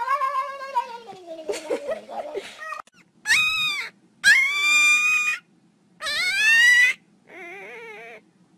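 A pet yowling: a long call falling in pitch, then four separate drawn-out calls of about a second each, the last one lower and wavering.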